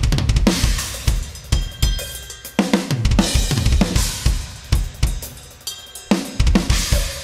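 Acoustic drum kit played hard, with kick and snare driving under Zildjian crash cymbals. The cymbals are struck just after the start, a little before three seconds and about six seconds in, each left to ring and fade.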